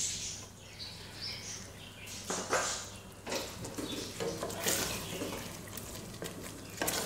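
A wooden spoon stirring thick chicken gravy in a steel pot, giving irregular wet, sloshing strokes, over a low steady hum.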